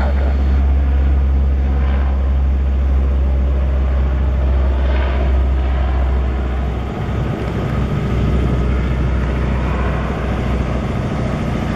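Lockheed C-130H Hercules's four Allison T56 turboprop engines at takeoff power during the takeoff roll: a loud, steady drone with a heavy low rumble that breaks up a little after about seven seconds as the aircraft moves away.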